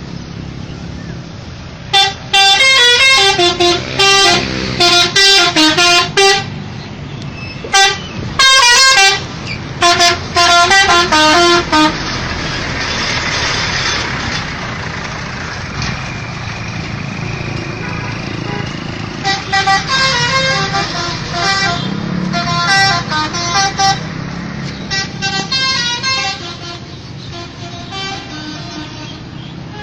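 A bus's 'telolet' multi-tone musical horn playing quick runs of changing notes in repeated bursts, loudest in the first dozen seconds. Then comes a stretch of steady traffic noise, and further quieter horn tunes near the end.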